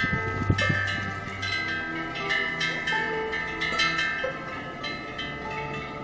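Korean temple wind bells (pungyeong) on the eaves, swung by the wind and struck irregularly, many times, each strike ringing on in several high tones that overlap.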